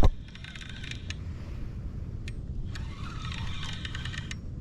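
Fishing reel being cranked to bring in a hooked fish: two spells of fast, fine ticking, one early and one about three seconds in, after a sharp knock at the very start. A steady low rumble of wind on the microphone runs underneath.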